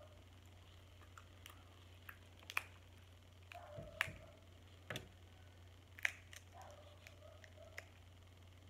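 Snow crab leg shell cracking and snapping as it is picked apart by hand: four sharp cracks in the middle of the stretch, with lighter clicks between.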